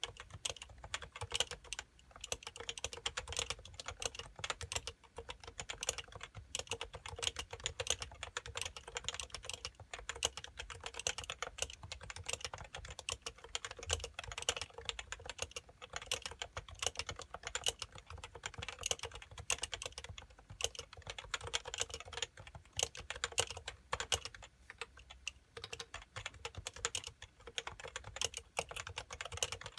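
Continuous fast typing on an HHKB Professional 2 keyboard with 45 g Topre electrostatic-capacitive switches: a rapid, uneven stream of soft keystroke clicks.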